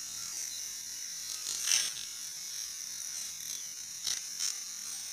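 Black snake firework tablets burning: a steady high hiss with three short crackles, the loudest under two seconds in and two smaller ones near the end.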